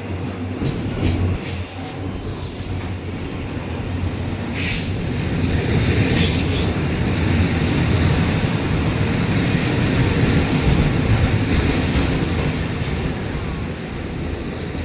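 Freight train of mostly empty flatcars rolling past, its wheels rumbling steadily on the rails. The rumble swells in the middle, with a few brief high wheel squeals.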